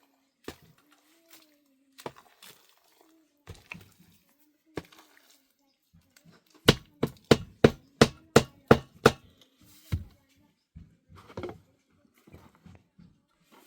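Hard, sharp blows: a few scattered knocks, then a quick run of about ten strikes, roughly four a second, about halfway through, with one more strike a second later.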